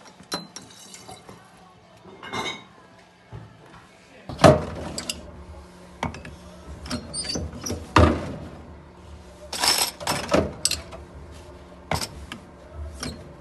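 Glass beer bottles being handled and crown caps crimped on with a lever-operated bench bottle capper: sharp clacks and clinks of glass and metal, a few seconds apart, beginning about four seconds in.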